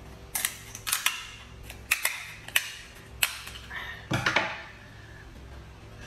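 Kitchen scissors cutting through the shell of a cooked king crab leg: a series of sharp snaps and cracks, ending in a longer crunch a little past four seconds in.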